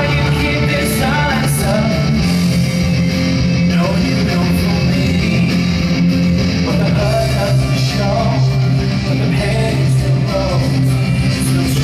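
Rock-style song with a singing voice and guitar, playing continuously as accompaniment to the act.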